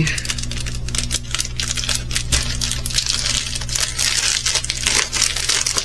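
Small plastic bags of diamond painting drills being handled: quick crinkling of plastic with many fast clicks of the tiny drills rattling inside.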